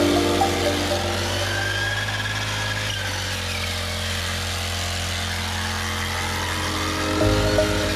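Honda GX50 four-stroke engine running steadily on a push weeder fitted with a steel wire brush wheel, with a fainter higher whine that rises and falls.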